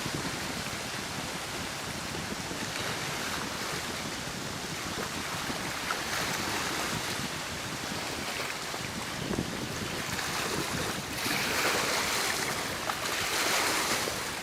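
Wind blowing on the microphone over choppy lake water, with waves splashing, a steady rush that grows louder in gusts near the end.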